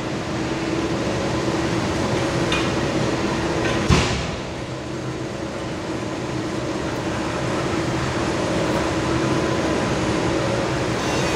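Wheeled steel rack of powder-coated trike frames rolling and rattling over a concrete factory floor, with one sharp metal clank about four seconds in, over a steady hum.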